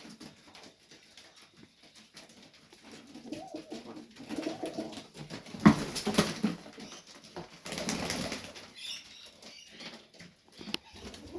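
Domestic pigeons cooing, with a sharp knock about halfway through and a short burst of wing flapping a couple of seconds later.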